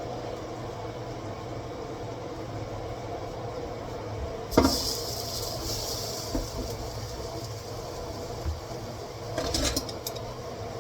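Kitchen handling sounds over a steady low hum: a sharp clunk about halfway through, followed by a couple of seconds of hiss, then a few clattering knocks near the end, as cookware and the oven are handled.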